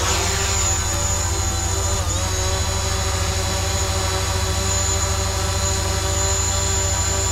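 DJI Mavic Pro quadcopter's four propellers whining steadily in flight, several tones at once, with a brief dip in pitch about two seconds in.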